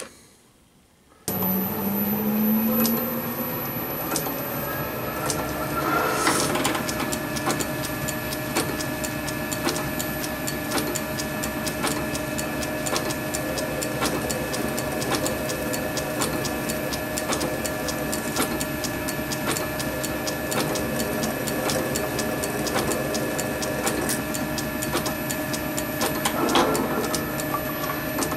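Small metal lathe switched on about a second in, its motor rising in pitch as it comes up to speed, then running steadily with a high whine while a twist drill in the tailstock chuck drills into a brass block held in the four-jaw chuck.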